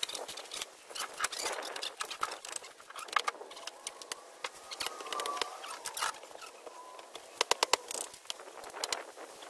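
Concrete landscape blocks clicking, knocking and scraping as they are handled and set in place, with a quick run of sharp clacks about seven and a half seconds in.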